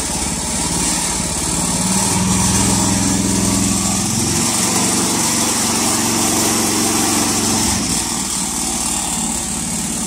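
Small engine of an optical fiber cable pulling machine running. It speeds up and gets louder about two seconds in as the throttle is opened, then eases back near the end.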